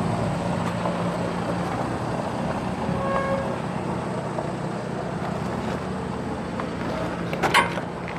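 2018 John Deere 5055E tractor's three-cylinder turbo diesel idling steadily, with a brief faint tone about three seconds in and a few sharp clicks near the end.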